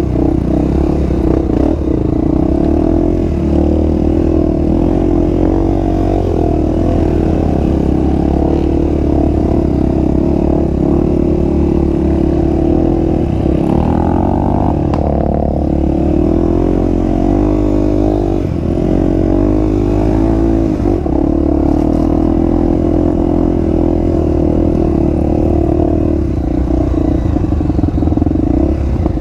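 Honda XR250 Tornado's single-cylinder four-stroke engine running under way through an aftermarket exhaust, its pitch rising and falling with the throttle around the middle.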